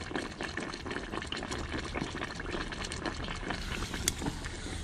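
Duck deep-frying in hot peanut oil: a steady crackling sizzle of bubbling oil, with a single sharp click from the metal tongs about four seconds in.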